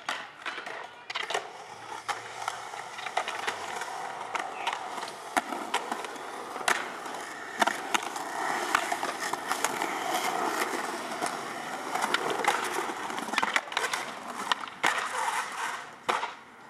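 Skateboards rolling on concrete, several at once, with repeated sharp clacks of boards popping and landing.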